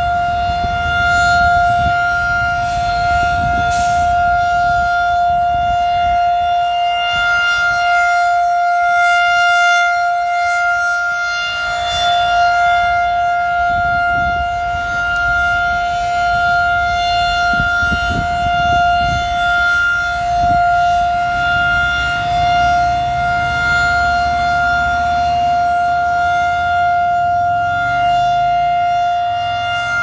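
Federal Signal 2001-SRN rotating electromechanical tornado siren sounding a steady full alert tone at constant pitch. The tone swells and eases gently as the horn rotates.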